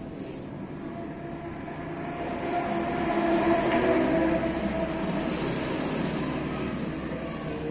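A passing vehicle's noise swells to a peak about four seconds in and then fades, drowning out the room.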